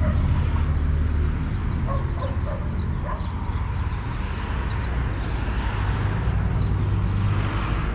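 A dog yapping a few times, about two to three seconds in, over a steady low rumble of street noise.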